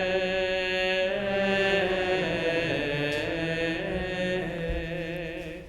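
Voices chanting a Latin liturgical response in long held notes, fading out just before the end.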